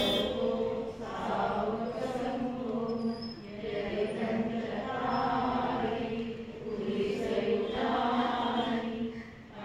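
Buddhist devotional chant by a group of voices in unison, long held notes in phrases that pause briefly every two or three seconds.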